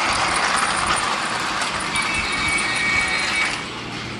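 Battery-powered toy trains running on plastic track: a steady whirr of small motors and wheels, with a thin high whine from about halfway through that stops near the end.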